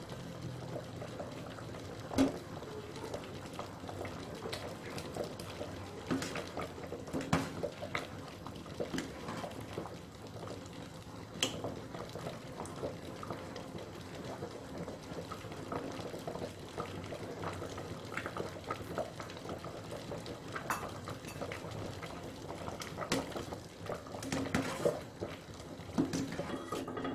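A pot of thick kolak, a palm-sugar sweet soup thickened with tapioca starch, bubbling at the boil while it is stirred with a ladle. Frequent sharp knocks of the ladle against the metal pot come over the bubbling.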